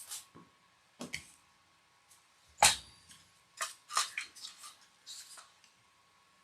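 Handling noises from a boxed bullet puller and its packaging: a few scattered knocks and clicks with light rustling, the sharpest knock about two and a half seconds in and a quick run of smaller knocks just after.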